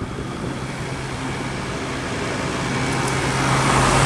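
Gibson 5000 BTU window air conditioner running with its Rechi compressor and fan on: a steady low hum under the rush of blown air, already cooling. The rushing noise grows louder toward the end.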